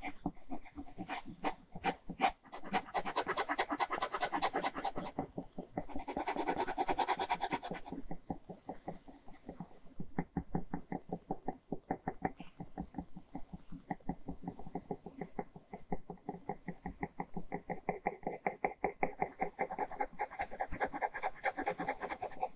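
Ballpoint pen scratching across paper while sketching and hatching a drawing. Dense bursts of scribbling come in the first eight seconds, then a long run of rapid, even back-and-forth strokes.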